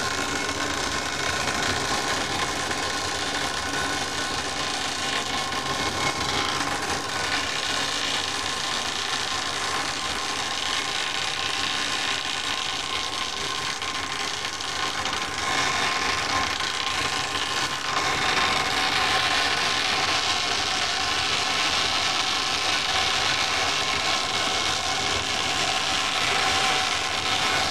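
Tyre strip cutting machine running, its motor driving two circular cutter discs that pull a tyre sidewall through and slice it into a strip: a steady mechanical noise with a faint whine, getting louder past the middle.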